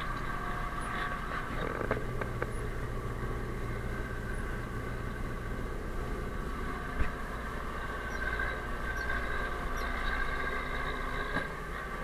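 DT-75 crawler tractor's diesel engine running steadily while it clears snow with its dozer blade, heard from inside the cab, with a single knock about seven seconds in.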